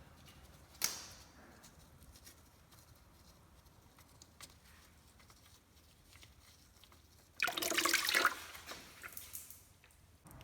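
A sharp click about a second in. Then, near the end, gearbox oil suddenly gushes out of the open drain hole and splashes into a catch pan for about two seconds, tapering off.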